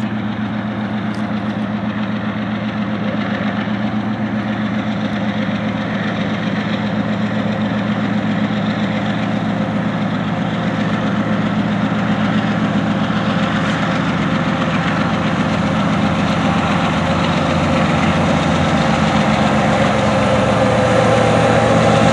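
Diesel-electric locomotives at the head of a BNSF coal train (GE ES44AC leading, with an EMD SD70MAC and a GE ES44C4) running as they approach. Their engines make a steady low drone that grows gradually louder.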